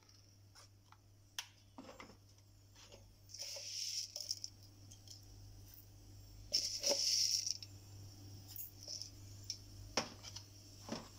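Fennel seeds tipped into a stainless steel mixer-grinder jar: two short pattering rustles, the louder one about six and a half seconds in, among scattered small clicks and taps against the jar.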